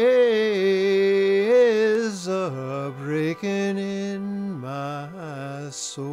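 A man singing a slow traditional Appalachian spiritual solo, his voice holding and bending long notes through a drawn-out phrase that falls lower in pitch toward the end.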